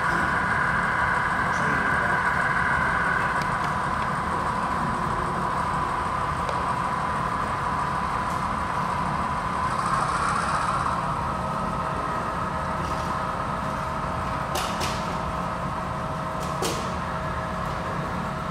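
HO-scale model freight train rolling past: a steady mechanical whine that drops in pitch about ten seconds in, with two sharp clicks near the end.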